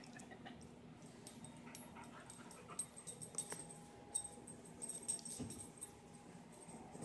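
Puppy's quiet mouth and snuffling sounds as it licks and nibbles at a hand, with scattered small clicks and ticks through the middle.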